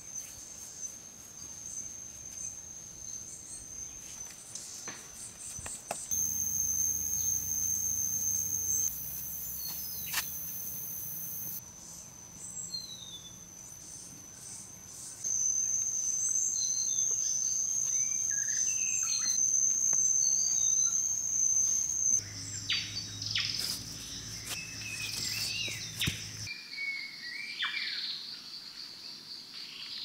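Forest ambience: a steady high-pitched insect drone with scattered bird chirps, and a few faint taps from hands working wet clay. The background shifts abruptly several times.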